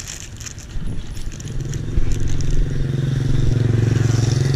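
A motorcycle engine running close by, coming in about a second and a half in and holding a steady low pitch. Before it, at the start, a paper food wrapper crinkles.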